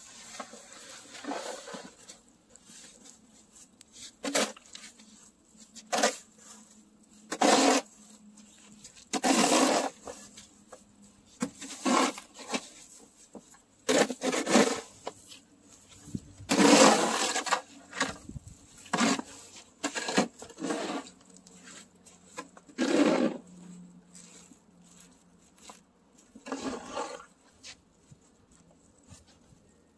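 Snow shovel scraping and pushing through snow, a stroke every couple of seconds.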